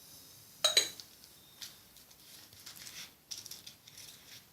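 A sharp double click about a second in, followed by scattered lighter clicks and rattles, like small objects being handled.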